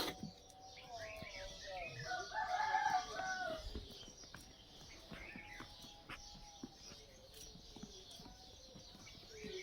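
A rooster crowing, one loud drawn-out crow about two seconds in, with fainter bird calls after it. A sharp click right at the start.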